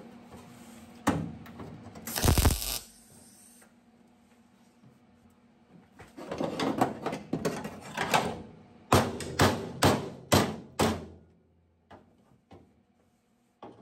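Sheet metal and tools being handled while a patch panel is fitted to a Volkswagen Super Beetle body for tack welding. A knock comes about a second in, then a short harsh burst, then clatter, and then about six sharp metallic clicks and taps in quick succession.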